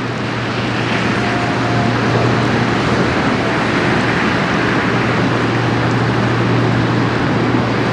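Bulk carrier passing close: a steady low engine drone under the rush of its bow wave breaking along the hull, growing a little louder over the first couple of seconds and then holding steady.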